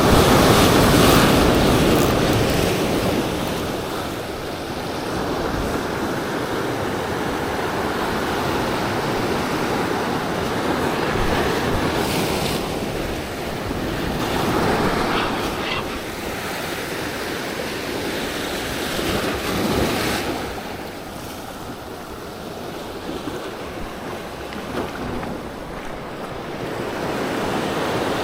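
Ocean surf breaking and washing against shoreline rocks, rising and falling in surges several seconds apart, with wind buffeting the microphone.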